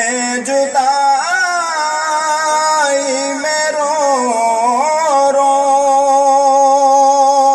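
A man singing an Urdu naat solo, drawing the words out into long melismatic notes: the voice slides and wavers between pitches, then holds one long steady note over the last couple of seconds.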